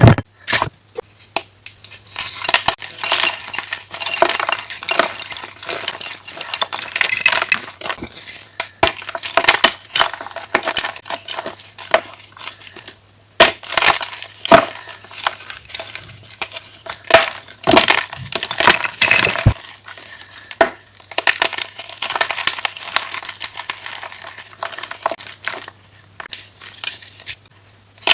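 Chunks of chalk being crunched and crumbled, a dense run of sharp, irregular crackles and snaps with a brief pause about halfway through. A faint steady low hum sits underneath.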